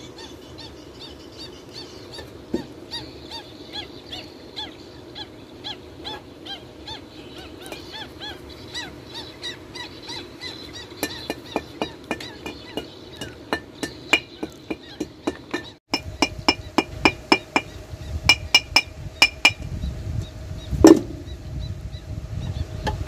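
Outdoor ambience full of short, quickly repeated small-animal calls for about sixteen seconds. Then comes a series of sharp metallic clicks and taps, several a second, with one louder knock near the end, from hand tools working on the opened water-pump casing.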